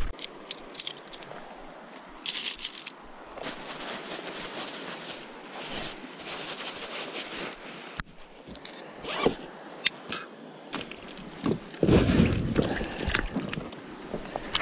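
Close rustling and scraping with zipper-like strokes and scattered clicks, as gear is handled. There is a sharp click about eight seconds in and a louder burst of rustling about twelve seconds in.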